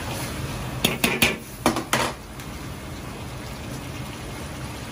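Metal ladle clanking and scraping against a large iron wok, five sharp knocks in quick succession in the first two seconds, over the steady bubbling of thick chili sauce boiling hard in the wok.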